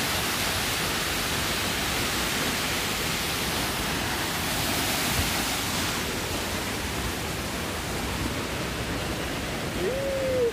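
Steady rush of the Obrovský waterfall, a mountain torrent pouring down a rock gorge.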